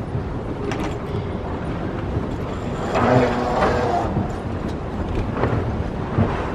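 Moving escalator running steadily under busy airport-terminal background noise, with a brief louder pitched sound about three seconds in.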